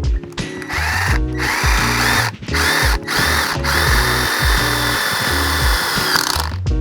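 Power drill running and boring through a thin aluminium bracket tab, starting about a second in with brief stops, over background music with a steady bass line.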